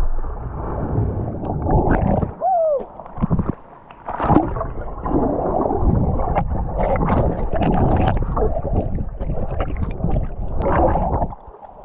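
Loud, muffled rushing and gurgling of river water against a GoPro action camera as it is splashed and plunged about, with short sharp splashes through it and brief lulls about three seconds in.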